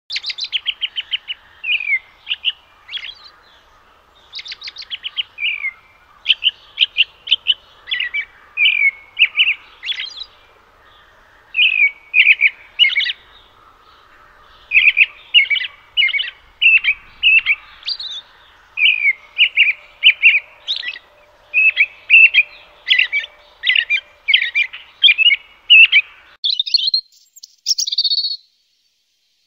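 European robin song: quick high chirps and twittering phrases in bursts separated by short pauses, with a few higher, clearer whistled notes near the end.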